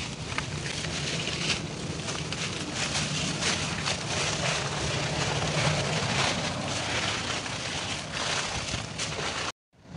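Dry leaf litter crunching and crackling under footsteps, over a steady low hum. The sound cuts out briefly near the end.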